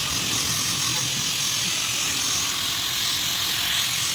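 A steady hiss that holds level without pauses.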